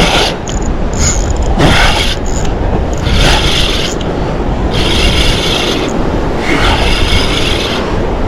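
Spinning fishing reel being wound in short bursts, a rasping whirr of about a second every couple of seconds, as a fish is played in. A steady low rumble of wind and surf runs underneath.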